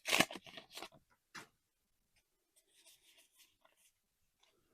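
Trading cards and a foil booster-pack wrapper being handled, with a few sharp crinkles and rustles in the first second and a half, then faint rubbing and shuffling of cards.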